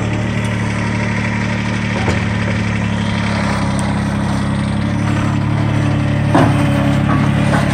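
Bobcat 453 skid-steer loader's engine running steadily as the loader works its bucket, with a few short knocks, the loudest about six and a half seconds in.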